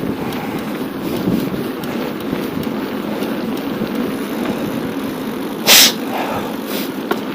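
Steady wind and rolling rumble of a bicycle ride picked up by the rider's camera microphone, with one short, loud hiss about two-thirds of the way through.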